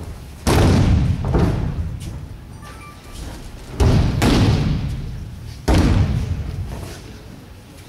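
Judo breakfalls on tatami mats: three heavy slapping thuds of a thrown body hitting the mat, about half a second, four and six seconds in, two of them followed by a lighter slap, each one echoing in a large hall.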